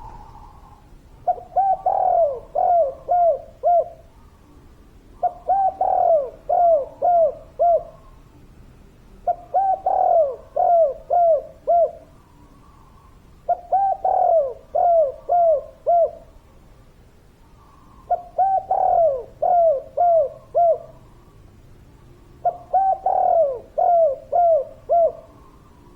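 Spotted dove (tekukur) cooing its repeated song: six phrases about four seconds apart, each a short run of about five quick, clear coos after a soft lead-in note.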